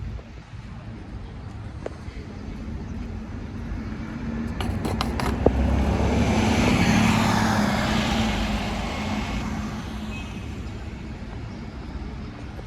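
Street traffic: a road vehicle passes, its rushing noise swelling to its loudest about seven seconds in and then fading, over a steady low hum. A few sharp clicks come just before the peak.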